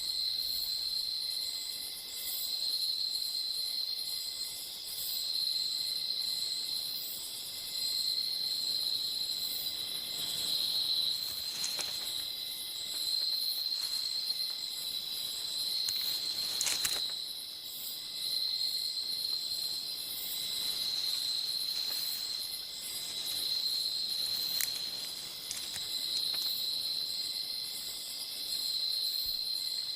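Chorus of tropical rainforest insects chirring: a steady high trill that swells and fades about every two seconds, with fainter, higher insect calls above it. There are two brief clicks, one near the middle and one a few seconds later.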